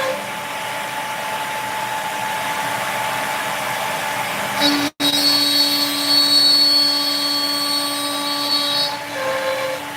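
CNC router spindle running and cutting out a part, over the steady noise of a dust extractor. The sound cuts out for an instant about five seconds in, after which a steady whine is stronger.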